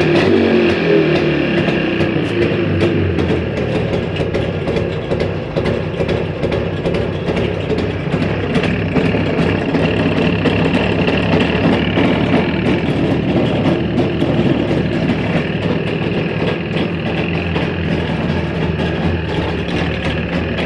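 Jawa 350 type 638 motorcycle's two-stroke twin engine running steadily at idle, carrying the extraneous engine noise the owner is trying to track down.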